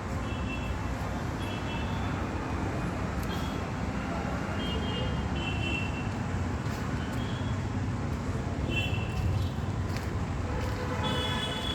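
Steady road traffic rumble, with several short, high vehicle horn toots, the loudest near the end.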